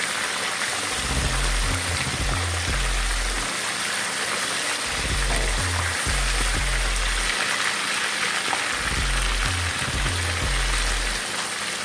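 Parrot fish frying in hot oil, a steady sizzle, under background music with a repeating bass line.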